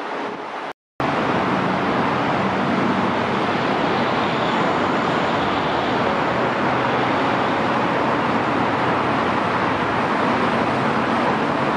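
Steady, even rush of traffic noise. It starts abruptly about a second in, after a moment's silence.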